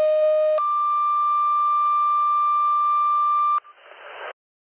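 Steady electronic beep tone that jumps up an octave about half a second in and holds for about three seconds, then stops, leaving a short hiss.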